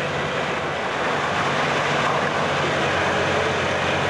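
Engine of a Menck cable crawler crane running steadily, with a constant rushing noise over it.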